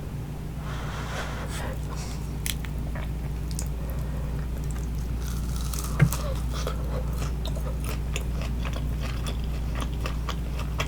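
Close-miked eating: bites into crispy baked spring rolls and chewing, with many small crunches and wet mouth clicks, and one sharp, louder click about six seconds in.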